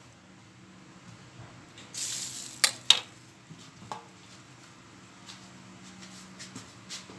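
Kitchen handling sounds: a plastic bag rustling briefly, then two sharp knocks close together and a lighter knock about a second later, over a low steady hum.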